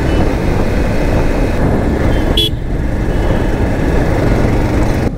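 220 cc motorcycle riding at road speed, its engine running under heavy wind rush on the microphone. One short vehicle horn toot sounds about two and a half seconds in.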